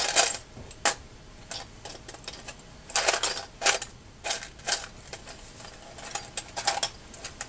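Small metal fishing-reel parts clinking and rattling as they are sorted through by hand: a run of light clicks, busiest about three seconds in and again near the end.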